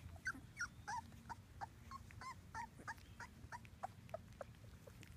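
Three-week-old Labrador Retriever puppies whimpering, a faint run of short, high squeaks coming about three a second.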